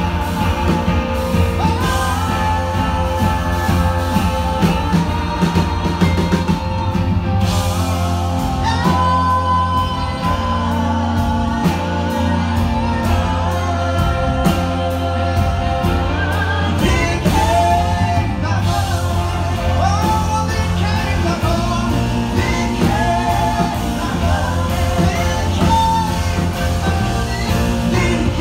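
Live band playing with singing: vocals over electric guitar, drum kit and keyboard, with a steady bass line and a continuous, loud mix.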